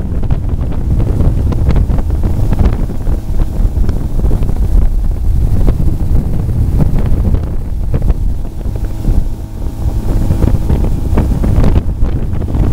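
Wind buffeting the microphone over the steady drone of a 19-foot Citation speedboat's 170-horsepower four-cylinder MerCruiser inboard-outboard engine, under way and pulling a water-skier. Faint steady engine tones show through the rumble.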